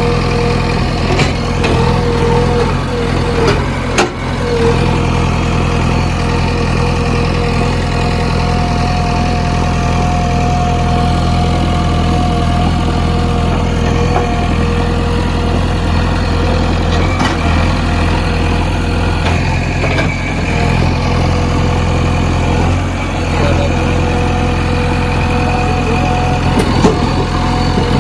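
JCB 3DX backhoe loader's diesel engine running steadily, with a steady whine over it and a few sharp clanks, one about four seconds in and one near the end.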